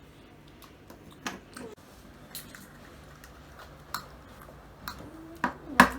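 Scattered light clicks and taps of small candies and plastic packaging being handled, with a louder knock just before the end.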